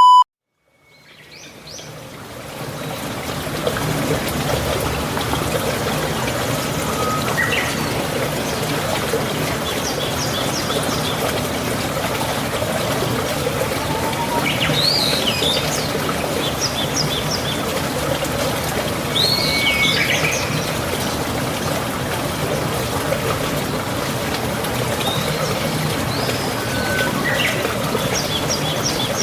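Running water trickling steadily, fading in over the first few seconds, with birds chirping now and then above it. A brief beep sounds right at the start.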